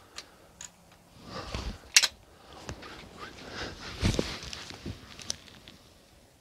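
Rifle being handled on the shooting rest: rustling, with one sharp metallic click about two seconds in and more handling around four seconds, as the Ruger No. 1 single-shot's falling-block lever is swung closed after loading a round.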